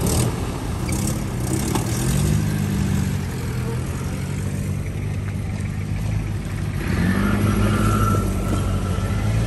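Willys flat-fender jeep engine running under load as the jeep drives through a muddy stream, water splashing at the start. The engine revs up about two seconds in and again near the end.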